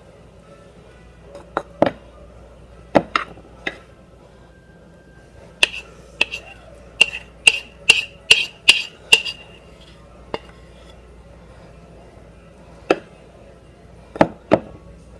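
Metal spoon clinking and scraping against the rim of a ceramic bowl as chocolate ganache is scraped out of it: scattered sharp clinks, then a quick run of about eight at roughly two a second through the middle, and a few more near the end.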